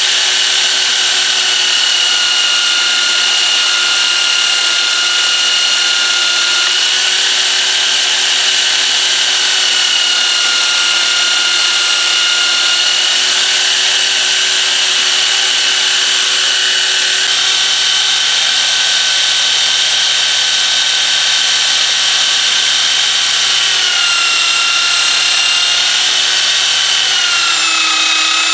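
Craftsman belt sander running with a steady high whine. Its pitch dips twice near the end as a steel knife blank is laid on the belt to grind it.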